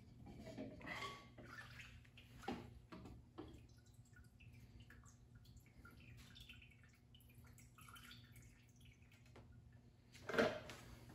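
Evaporust rust remover dripping and trickling off a camshaft as it is drawn up out of a soaking tube. There are a few light knocks, and a louder one near the end.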